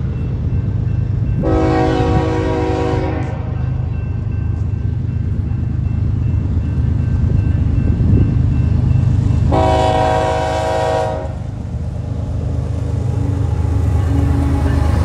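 A BNSF diesel freight locomotive's air horn sounding two long chord blasts about eight seconds apart, over the steady low rumble of the approaching train.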